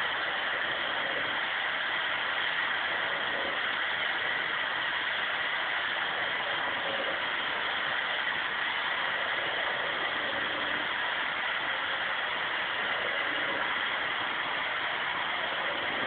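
Vacuum cleaner running steadily, its nozzle drawn over a dog's coat to suck up loose hair.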